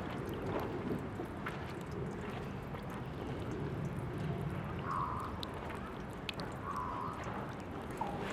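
Tap water running steadily from a drinking-fountain faucet, trickling and splashing with small irregular drips.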